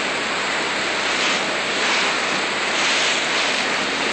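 Steady rushing noise of a motorboat under way at speed: churning wake water and wind, with a faint low engine hum beneath.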